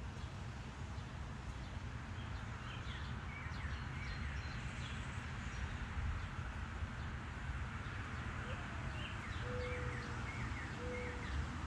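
Small songbirds giving short, high chirps again and again over a steady low background rumble. Near the end come three short, even, low-pitched notes.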